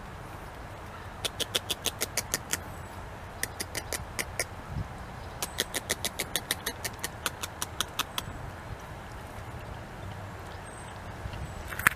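North American beaver chewing a piece of bark held in its forepaws: three runs of quick, sharp crunching clicks, several a second, with short pauses between runs.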